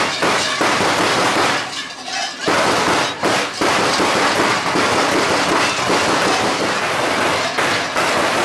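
Large bells worn by costumed Perchten clanging together in a loud, dense metallic din, with a short lull about two seconds in.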